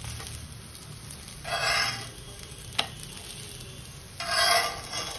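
Steel spatula scraping under and flipping thalipeeth flatbreads on an oiled cast-iron tawa, over a faint steady sizzle. Two short scraping, sizzling bursts about a second and a half and four and a half seconds in, with a single sharp tap of metal on iron between them.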